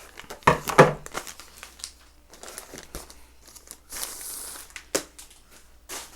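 Plastic packaging crinkling and rustling as foam RC plane parts are handled and unwrapped, in several short rustles, the loudest just under a second in.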